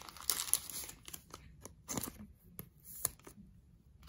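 Baseball card pack wrapper crinkling and cards being handled. The rustle is densest in the first second, then it thins to a few short taps and rustles.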